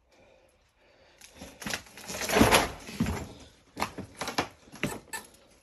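Fire debris scraping and crunching underfoot, loudest about halfway through, followed by a few sharp knocks and cracks of rubble being stepped on or kicked.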